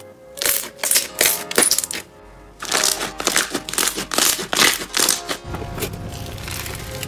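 Hands pressing and squishing thick, glossy slime, giving clusters of sharp crackling pops and clicks. About five and a half seconds in, this gives way to a denser, steady crunchy crackle as foam-bead slime (floam) is squeezed. Soft background music plays underneath.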